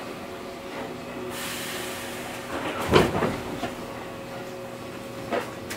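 Keihan 5000 series train's air-operated passenger doors closing: a hiss of air about a second in, then a loud thud as the doors shut, and a smaller knock near the end, over the steady hum of the standing train's equipment.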